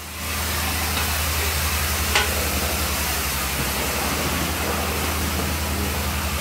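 Steady rushing, hissing noise over a constant low machine hum, with one short sharp tick about two seconds in.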